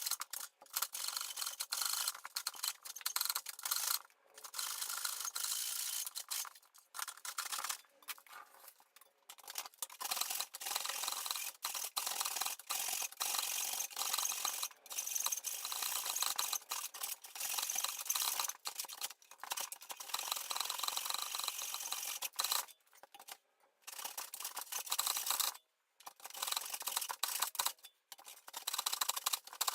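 Handsaw cutting through wood, sped up so the rasping strokes come fast and continuous, broken by several brief gaps.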